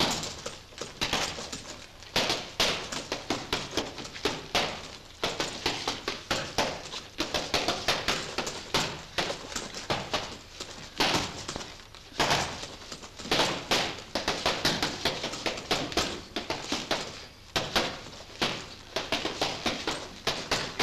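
Boxing gloves hitting an 80-kilo heavy punching bag: fast flurries of sharp punch impacts, several a second, broken by short pauses.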